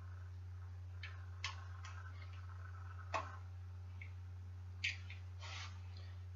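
Light clicks and brief scraping of bicycle headset parts being handled and fitted on the steerer tube, with three sharper clicks about a second and a half to two seconds apart, over a steady low hum.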